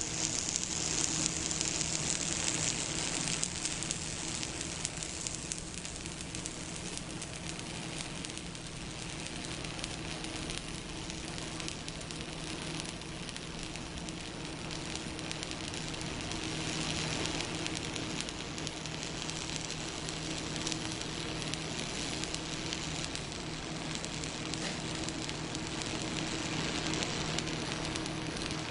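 Stick-welding arc from a stud pull electrode running steadily without a break, with a low steady hum underneath, as weld is built up inside a nut to join it to a broken stud.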